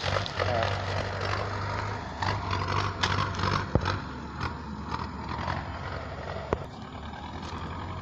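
Crinkling and rustling of a mud-caked plastic snack wrapper being handled, with a few sharp clicks, over a low steady hum that stops about halfway through.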